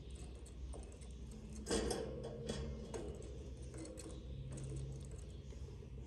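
Faint clicks and rustles in a budgie nest box lined with wood shavings, over a low steady hum, with one louder brief scuffle about two seconds in.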